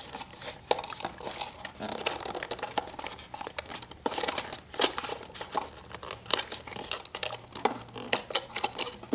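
Stiff clear plastic packaging crinkling and clicking irregularly as an action camera is worked free of its plastic display case and mount.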